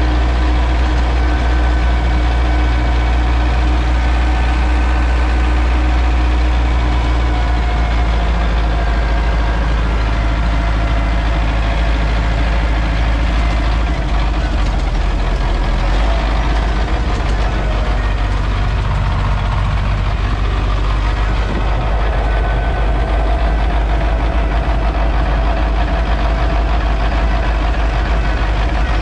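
MTZ tractor's diesel engine running steadily, heard from inside the cab, with a deep rumble and a note that shifts slightly a few times.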